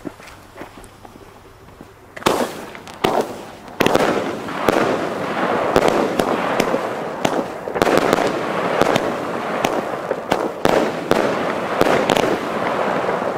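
A 16-shot, 30 mm fireworks battery (Flying Sauerkraut) firing: its fuse sputters faintly for about two seconds, then shots launch, first singly and then in quick succession, their bursts in the air breaking into dense crackling.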